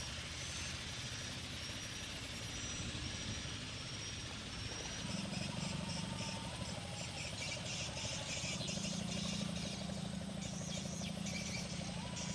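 Outdoor ambience with insects chirping in quick trills and short repeated high peeps. About five seconds in, a steady low engine hum comes in and carries on.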